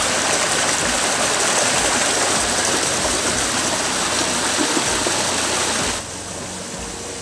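Steady rush of a rocky freshwater stream running close by. It drops suddenly in loudness about six seconds in.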